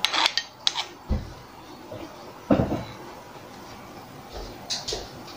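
A spoon scraping and tapping on a plastic bowl in a few quick clicks, then scattered dull knocks and clacks of kitchenware being handled, the loudest knock about two and a half seconds in.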